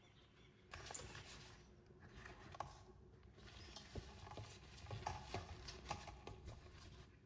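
Cloth wrapped around strained sour cream being unfolded by hand: faint rustling of fabric in several stretches, with a few light clicks.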